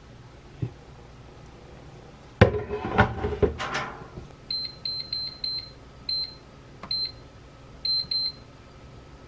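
Air fryer basket clattering into place, then the air fryer's touch panel beeping, about nine short high beeps at irregular intervals, one for each button press as the temperature and time are set.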